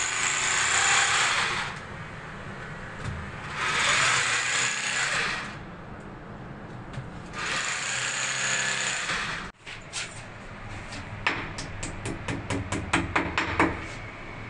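Electric power drill run in three bursts of about two seconds each. Near the end, a quick run of sharp clicks and taps that speeds up before stopping.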